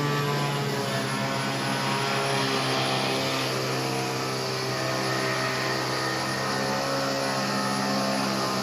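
Angle grinder, rigged as a router with a drill attachment, running steadily with a constant motor whine. About three and a half seconds in, a higher hiss joins the whine.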